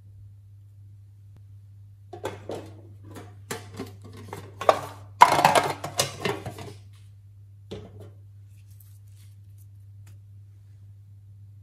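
A small printed tin box being handled and opened: a run of clicks and metallic rattles that builds to a clattering burst in the middle, then one last click, over a steady low hum.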